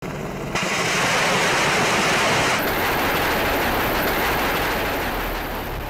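AH-64 Apache attack helicopter in flight: steady, loud rotor and turbine noise. A thin high whine joins about two and a half seconds in.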